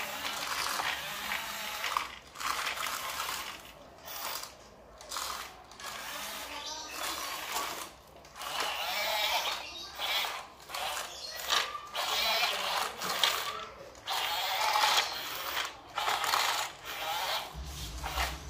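Small electric motors and gearboxes of Huina radio-controlled construction toys, a dump truck and excavators, whirring in short bursts that stop and start every one to two seconds.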